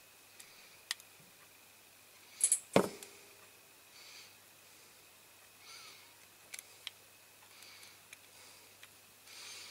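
Small metal parts of a diecast model tractor being handled and pressed together: scattered light clicks and taps, with one louder knock and clatter about two and a half seconds in, and a few soft breaths.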